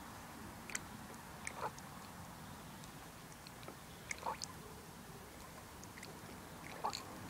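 Faint gurgling pops of air bubbles coming up through the brake fluid in a 1987 BMW K75's front brake master cylinder reservoir as the lever is gently squeezed. A handful of small, irregularly spaced pops mark air being driven out of the line during reverse bleeding.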